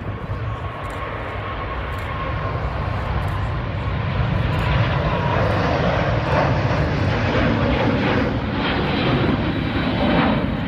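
Airbus A350-900's Rolls-Royce Trent XWB jet engines at takeoff thrust as the airliner lifts off and climbs away: a loud roar that builds over the first four seconds and then holds, with a steady whine early on that fades about five seconds in.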